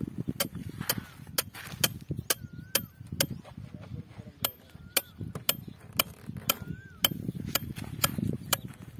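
Sharp mechanical clicking, irregular at about two clicks a second, over low rumbling handling noise; a short gliding chirp sounds twice.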